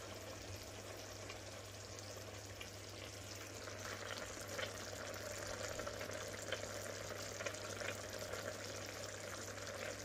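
A wide pan of thick spiced sauce simmering on the hob, bubbling and sizzling faintly. Small pops become more frequent after about four seconds, over a low steady hum.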